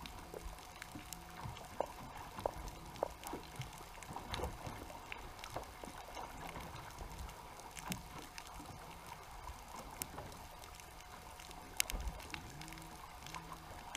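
Muffled underwater sound picked up through a GoPro's waterproof housing: a low rumble with many scattered sharp clicks and a faint steady hum.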